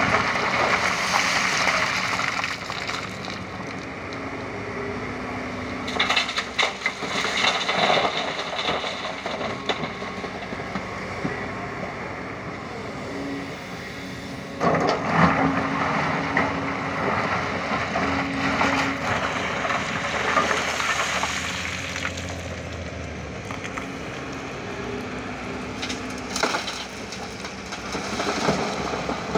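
Kobelco SK220 hydraulic excavator's engine running steadily as its bucket digs into a pile of broken rock, stones scraping and clattering. Louder bursts of rock crunching come about six seconds in, around fifteen seconds and near the end.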